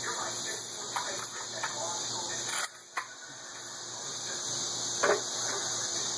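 A cheap BB gun fires once with a short, sharp report about five seconds in, the loudest sound here, after a lighter click about three seconds in, over a steady hiss of background noise.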